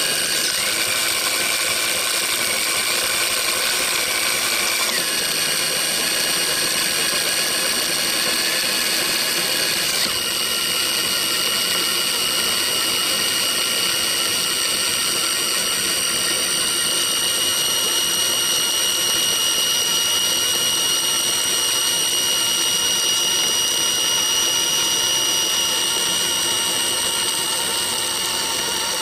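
Scale-model wheel loader's electric drive motors and gearing running with a steady, high-pitched whine of several tones. The pitch shifts about five seconds in and again at about ten seconds.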